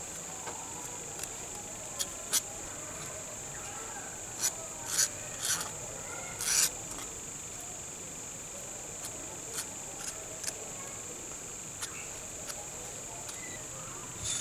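A small metal spatula scrapes and taps as it spreads epoxy glue onto a cleaver's steel tang and threaded rod. Short clicks and scrapes come irregularly, the loudest a cluster about four to seven seconds in, over a steady high-pitched whine.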